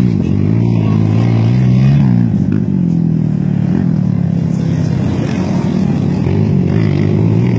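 Quad bike (ATV) engine revving hard as it races across sand, its pitch climbing over the first two seconds, dropping, then rising and falling again with the throttle.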